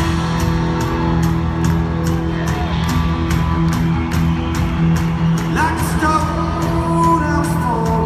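Live rock band playing, heard from the arena crowd: electric guitars over a steady drum beat, with a male voice starting to sing a little past halfway.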